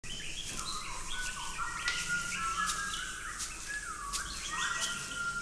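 Bird-like chirping: many short, overlapping chirps and downward whistles, with scattered sharp clicks among them, starting abruptly.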